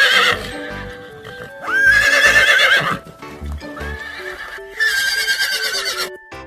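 Horse neighing: several loud whinnies with a trembling, quavering pitch, the second starting about two seconds in and the last about five seconds in, over low hoof clops. Light background music runs underneath.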